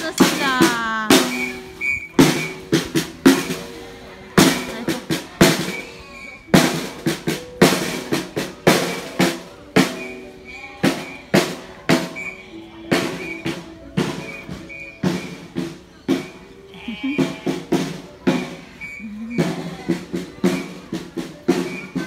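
Music driven by busy drumming: rapid, irregular drum hits throughout, with a few held notes underneath.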